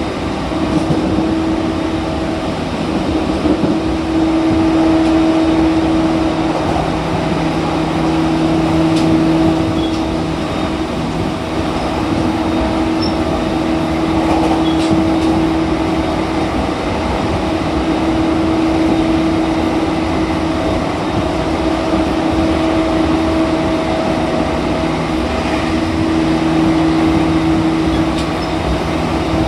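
JR East E231 series 1000 electric train running at a steady pace, heard from inside the car: continuous wheel-and-rail noise with a steady motor hum that fades in and out several times.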